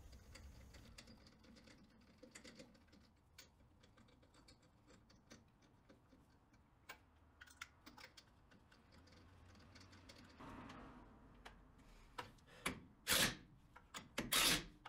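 Lug nuts being spun onto a truck wheel's studs by hand, with faint small metallic clicks and rattles. Near the end a cordless impact wrench fires two short bursts, running the lug nuts down.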